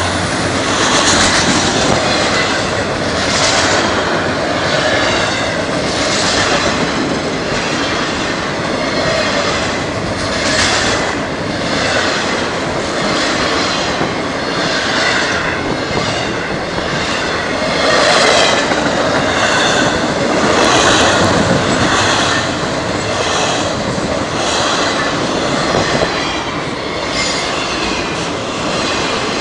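Freight train rolling past: a continuous loud rumble and roar of the cars on the rails, swelling about every two seconds.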